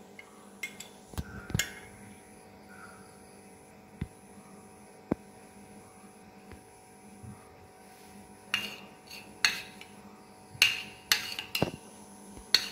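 A spoon clinking and tapping against a small dish while honey is stirred into squeezed herb juice: a few scattered light knocks, then a quicker run of clinks near the end.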